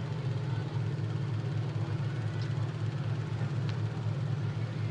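Steady low drone of engines running at idle, unchanging in pitch and level.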